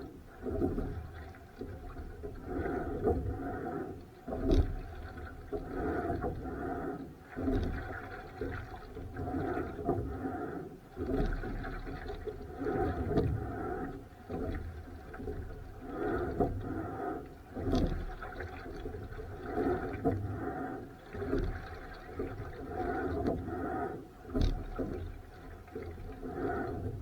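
Rowing boat under way: oar strokes in the water surging in a rhythm, one every two to three seconds, with sharp knocks from the oar gear on a few strokes, in strong wind.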